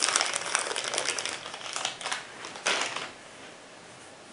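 Clear plastic bag crinkling as a small folding knife is worked out of it: a dense run of crinkling, then two short bursts, stopping about three seconds in.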